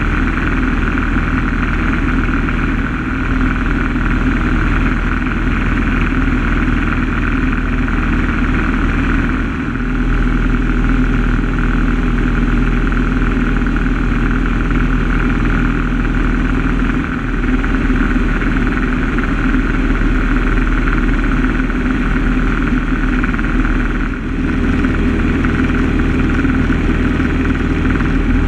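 Single-engine propeller aircraft in cruising flight, heard from inside the cockpit: a loud, steady engine and propeller drone that dips briefly a few times.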